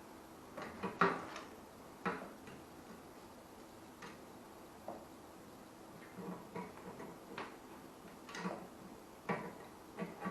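Light, irregular clicks and knocks of metal motorbike parts being handled and jiggled while a tight-fitting component is worked out of the frame.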